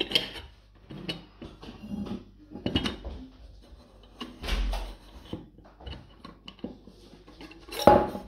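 Aluminium camp mug and its French press lid being handled: scattered light clinks, scrapes and knocks of metal on metal and on a wooden tabletop, with a louder clatter near the end as the lid is lifted out of the mug.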